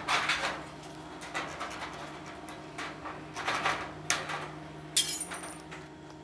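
Hand tin snips cutting steel barge capping flashing: about half a dozen short, irregular cuts, the sharpest about five seconds in, over a steady low hum.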